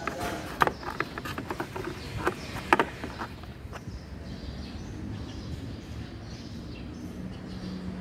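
Hard plastic fuse box cover being unclipped and lifted off, giving a string of sharp clicks and knocks over the first few seconds, then only a steady low background noise.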